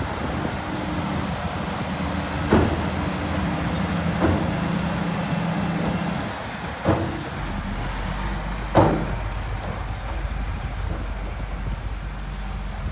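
Heavy earthmoving machine's diesel engine running steadily, with four sharp metal clanks. About seven seconds in, the engine note shifts to a deeper hum.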